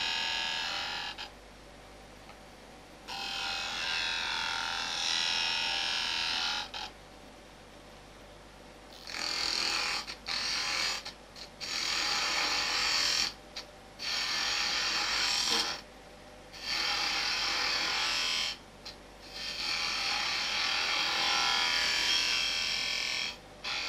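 High-speed steel spindle gouge cutting a cove into a beefwood spindle on a running wood lathe: a hissing shaving cut in about eight passes of one to four seconds each. Between passes, with the tool off the wood, only the lathe's faint running hum remains.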